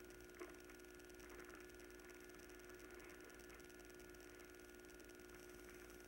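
Near silence with a steady electrical hum and a faint tick about half a second in.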